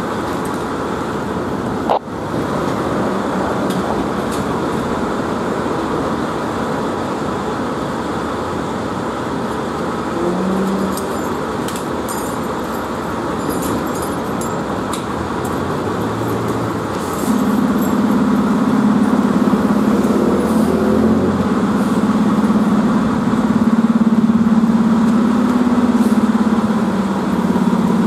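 Fire trucks' diesel engines idling in an open firehouse bay, mixed with city street traffic. About two-thirds of the way through, a steady low engine drone joins and the overall sound gets louder.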